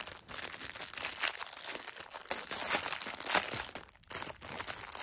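Plastic packaging crinkling and rustling irregularly as it is handled and pulled open.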